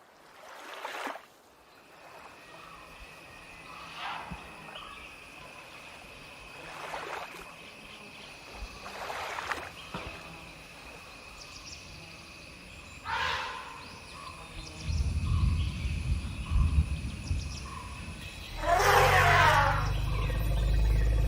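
Wild animal calls repeating every few seconds over a steady high tone, with a low rumble building in the second half and a loud call with falling sweeps near the end.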